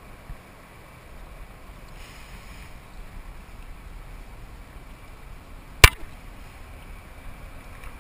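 Water and wind noise beside a kayak while a hooked smallmouth bass is lifted from the water by hand, with a faint splash about two seconds in. One sharp knock about six seconds in is the loudest sound.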